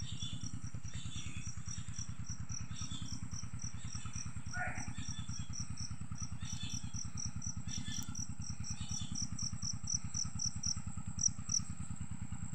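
An insect chirping steadily in a high-pitched, even pulse of about four chirps a second, over a low, steady engine-like drone. A brief rising call sounds about four and a half seconds in.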